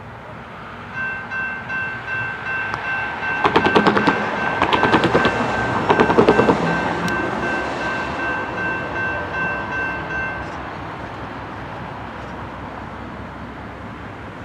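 The air horn of a Norfolk Southern GE D9-40CW diesel locomotive sounds one held multi-note chord for about nine seconds as the train approaches. A run of sharp crackling clicks, the loudest part, comes in the middle of the blast.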